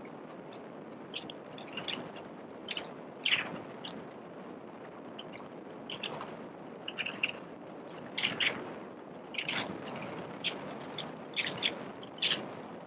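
City street ambience: a steady hum of distant traffic, with short, high bird chirps at irregular intervals.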